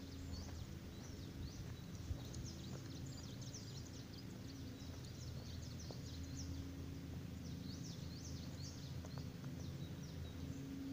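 Many small birds chirping in quick, high, irregular calls over a low steady hum, with a few faint knocks.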